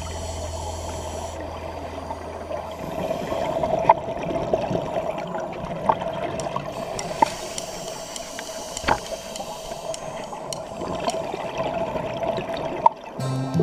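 Underwater sound on a diver's camera: the hiss and gurgle of scuba regulator exhaust bubbles, with several sharp clicks scattered through it.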